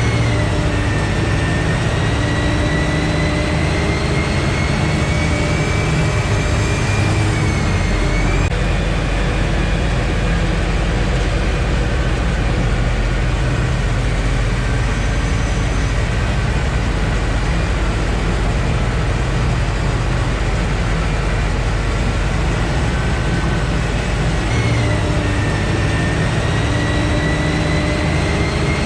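Sherp 10x10 all-terrain truck's engine running steadily under way, with a high whine that slowly rises and falls in pitch.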